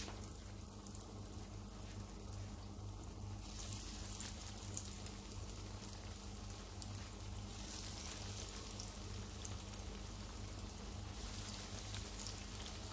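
Breaded, stuffed dough drumsticks sizzling in shallow hot oil in a skillet, with more pieces added as it goes. The sizzle grows louder about three and a half seconds in and eases a little near the end.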